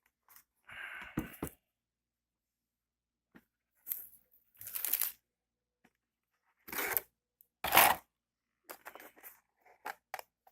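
Headphone packaging being handled and opened: several short bursts of rustling and tearing with pauses between them, and a few sharp clicks near the end.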